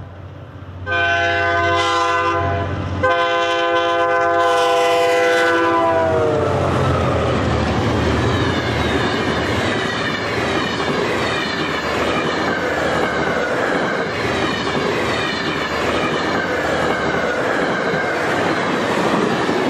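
Passenger train horn sounding two long blasts, the pitch sliding down at the end of the second as the train passes. It is followed by the steady rumble and clatter of the train's wheels on the rails.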